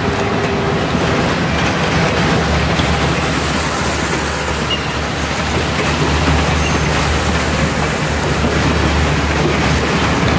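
EMD GP38 diesel-electric locomotive running, its two-stroke 16-cylinder 645 engine giving a steady low drone under a continuous rushing noise.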